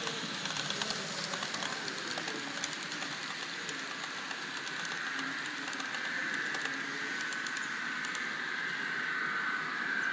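Model trains running on a layout track: small wheel clicks over the rail joints as coaches pass. A high electric motor whine grows louder in the second half.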